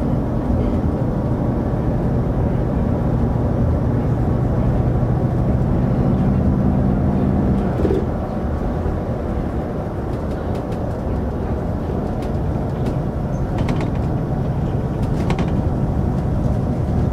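City bus under way, heard from inside the cabin: steady engine hum over road and tyre rumble. About eight seconds in, the engine note drops away and mostly road rumble is left.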